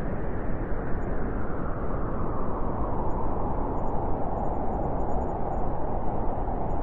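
Blizzard wind blowing steadily: a dense, unbroken rushing roar with no gusts standing out.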